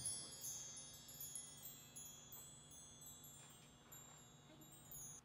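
Mark tree (bar chimes) ringing out, its many small metal rods tinkling high and slowly fading away.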